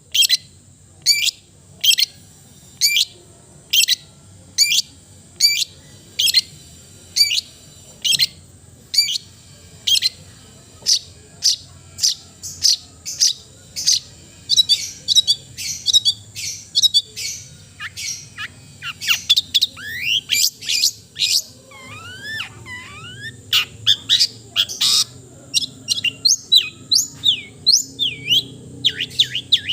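Long-tailed shrike (cendet) singing: a short, sharp note repeated about once a second, then a faster, varied run of notes with sweeping whistles from about twenty seconds in.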